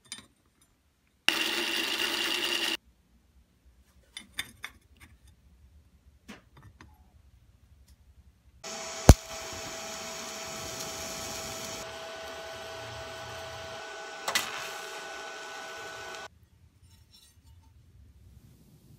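TIG welding arc on steel plate, running steadily with a hiss and a held buzzing tone for about seven and a half seconds. It opens with a sharp crack as the arc strikes, with a second short crack a little before it stops. Earlier there is a loud, steady burst of noise lasting about a second and a half, then a few light clicks.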